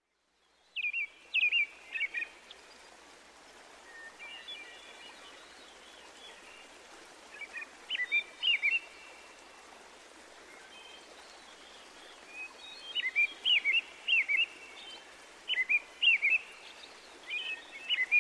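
Birdsong: a small bird singing clusters of quick chirping notes every few seconds over a steady soft hiss of outdoor background noise, starting about a second in.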